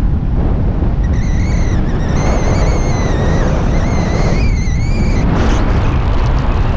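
Heavy wind buffeting on the microphone, a steady loud rumble. From about a second in, for roughly four seconds, a high wavering whistle-like tone sounds over it.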